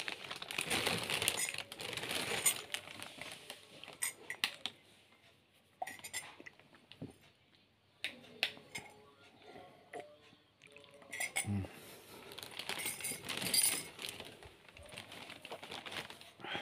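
Clinking and clattering of tableware, metal and glass knocking together as items are handled, in busy runs of clinks at the start and again past the middle, with scattered single clinks between.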